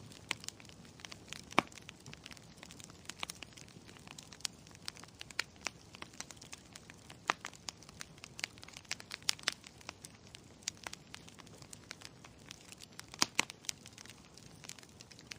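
A fire crackling: irregular sharp pops over a soft hiss, with a louder pop about a second and a half in and another near the end.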